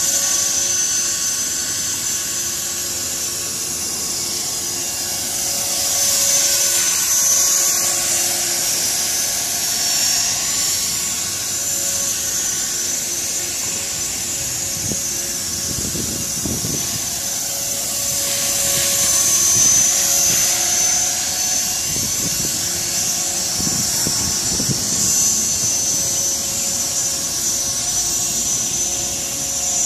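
CopterX 450 electric RC helicopter in flight, its motor and rotors making a steady high-pitched whine. The sound swells louder twice, about a quarter of the way in and again past the middle, as the helicopter moves about.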